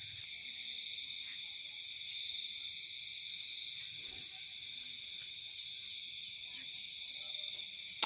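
Night chorus of crickets and other insects: a steady high-pitched trilling in several layered bands, one of them pulsing evenly.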